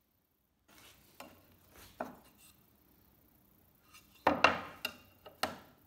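Hardwood drawer dividers knocking and rattling against the wooden drawer as they are pushed into place: a scattering of sharp wooden knocks, the loudest cluster about four seconds in.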